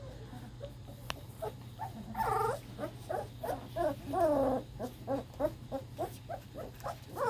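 A litter of young puppies whining and grumbling: many short, overlapping yelps and whimpers, coming quickly one after another, some rising and falling in pitch.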